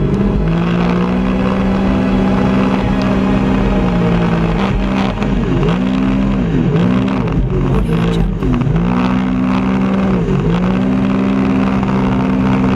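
Jet ski engine running hard at speed. Its pitch drops briefly and climbs back several times as the throttle is eased off and reopened through the bends.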